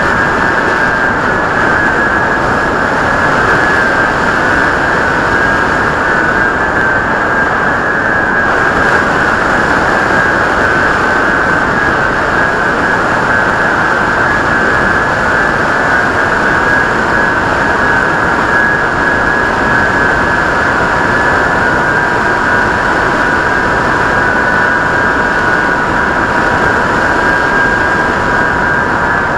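Skywalker RC plane's motor and propeller, heard close up as a steady whine over a continuous rush of wind noise. The pitch dips slightly about eight seconds in.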